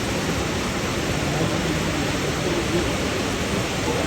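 A small mountain waterfall with a steady noise of falling water. It starts abruptly, as if at a cut in the recording.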